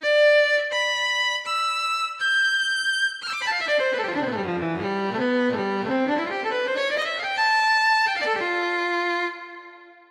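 Sampled solo violin from the Nexus 4 software synth ('Violin Solo' preset), played as single notes: four held notes stepping upward, then a fast run down and back up, ending on held notes that fade out near the end.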